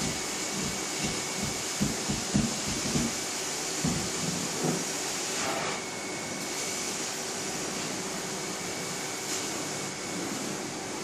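Carpet-cleaning extraction machine's vacuum running steadily as the floor wand is drawn across carpet, with a run of low knocks during the first few seconds.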